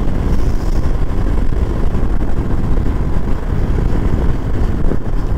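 Steady low rumble of wind, engine and road noise from a motorbike being ridden along a road.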